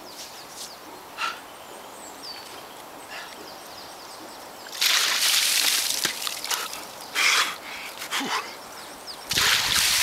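Cold water thrown from a basin over a person's body, splashing and pouring onto the snow: one loud rush about halfway through that lasts over a second, a few short splashes after it, then a second basin poured over the head near the end.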